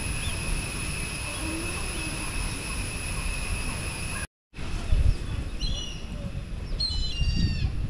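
Village outdoor ambience: a low rumble on the microphone under a steady high-pitched whine, cutting out completely for about a quarter of a second a little after four seconds in. Near the end a bird gives two short bursts of falling, chirping calls.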